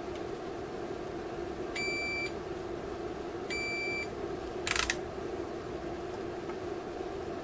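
Digital multimeter's continuity buzzer beeping twice, each beep about half a second, as the probes touch points on the inverter board: the beep signals a low-resistance, connected path. A brief clatter follows about a second after the second beep, over a steady low hum.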